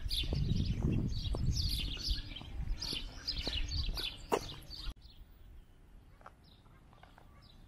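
Small birds chirping rapidly, with short falling chirps several times a second over low wind rumble on the microphone. About five seconds in, the sound cuts off abruptly and a much quieter outdoor background follows.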